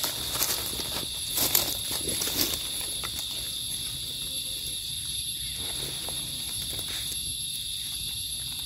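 Insects droning steadily at two high pitches, with a few brief crackles of dry leaf litter in the first couple of seconds.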